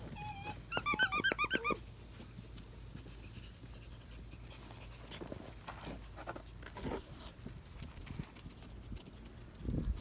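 German Shepherd puppy whining: a quick run of about eight short, high yelps about a second in. Softer scuffling and chewing sounds follow as the puppies paw and mouth plush toys.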